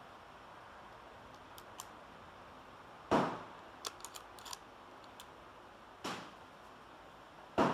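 Gunshots from other shooters on the range: a sharp report about three seconds in, a softer one about six seconds in and another near the end, each with a short echo under the shelter roof. Light clicks of the bolt-action rifle being handled on the bench about four seconds in.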